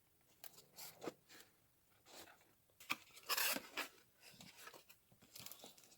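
Packaging being handled and opened: irregular rustling, crinkling and tearing, loudest about three and a half seconds in.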